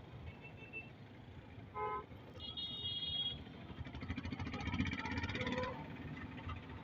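Street traffic: a short vehicle horn honk, then a higher-pitched horn sounding for most of a second, followed by engine noise from passing vehicles that swells and fades.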